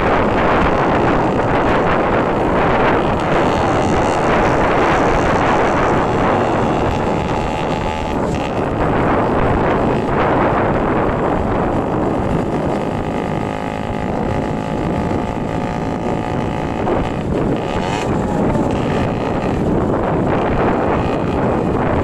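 Wind rushing over the microphone of a vehicle moving at road speed, with an engine running beneath it; a steady engine tone comes through more clearly for a few seconds just past the middle.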